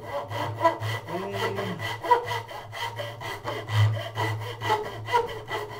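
Fret saw cutting a fret slot across a wooden ukulele neck, in quick, even back-and-forth strokes of about five a second. The slot is cut just deep enough for a metal fret to be held in by friction.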